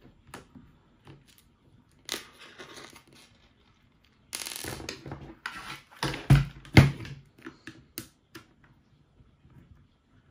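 Hand-work noises on a plastic RC car chassis: a small screwdriver scraping and turning in screw heads and the chassis rattling as it is lifted and turned over, with two loud knocks a little past six seconds in and a single click at about eight seconds.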